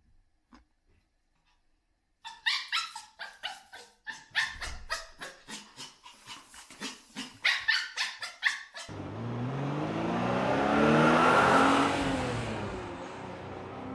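Long-haired Chihuahua yapping excitedly in rapid, sharp barks, about three or four a second, for roughly six seconds. Then the sound switches to the inside of a moving car: engine and road noise, with the engine pitch rising as the car speeds up and dropping again near the end.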